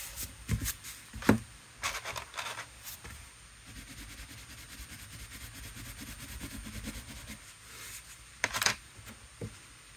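A watercolour crayon scribbling on watercolour paper, a low scratchy rubbing for about three seconds in the middle. Pens and crayons being picked up and set down on the table make a few light taps before it and a couple more near the end.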